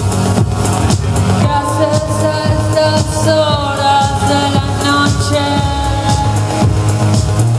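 A live band playing: a steady beat and bass, with a lead melody line coming in about a second and a half in and bending in pitch before it fades out near the end.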